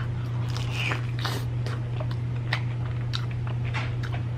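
Mouth sounds of chewing and biting into fried chicken dipped in nacho cheese: a string of short, irregular clicks. Underneath runs a steady low hum from a clothes dryer running.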